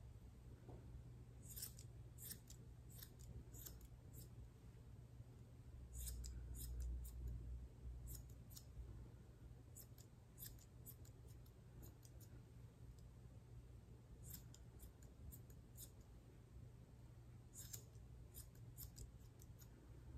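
Grooming scissors snipping through a Bichon Frise's curly coat: quiet, crisp snips in quick runs of several cuts, with short pauses between runs. A brief low rumble comes about six seconds in.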